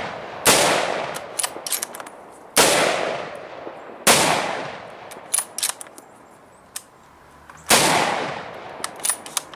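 Four rifle shots from a scoped bolt-action rifle and an AR-15 fired side by side, irregularly spaced, each ringing out for about a second and a half. Lighter sharp clicks come between the shots.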